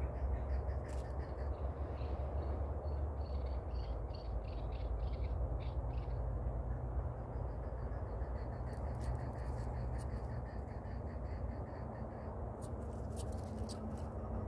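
Chukar partridge calling in rapid runs of short, repeated clucking notes, two runs in all, over a steady low rumble.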